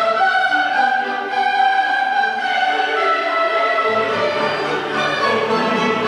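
Orchestral classical music with long held string tones, played through an 808 LXS wireless speaker.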